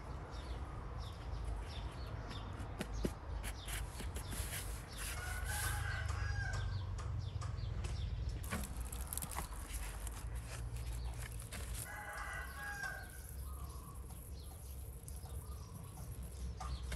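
A rooster crowing twice, about five seconds in and again about twelve seconds in, each crow lasting over a second. Small scattered clicks of handling are heard between the crows.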